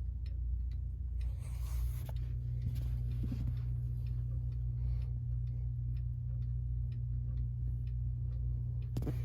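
Hermle 1050-021 triple-chime mechanical clock movement ticking at an even beat as it runs well. A steady low hum lies underneath.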